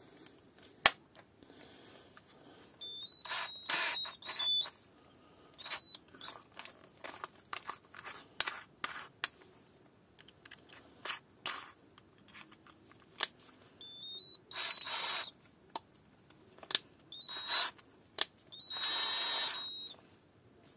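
Parkside PBSA 12 cordless drill spun in several short bursts of about a second, a rising whine each time, as its keyless chuck is opened and closed to change from a screwdriver bit to a drill bit. Clicks and rattles of the bits and chuck being handled come in between.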